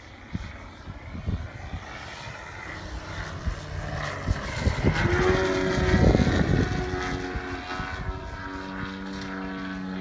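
Large-scale RC aerobatic model plane (Pilot RC 330 SV, 2.7 m span) making a low pass. Its engine and propeller grow louder to a peak about six seconds in, then the engine note drops in pitch as the plane passes and draws away.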